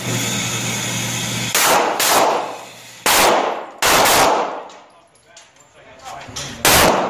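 A motorised target carrier runs with a steady hum for about a second and a half, bringing the paper target back to the booth. Then come about six loud, irregularly spaced gunshots from other lanes, echoing in the indoor range.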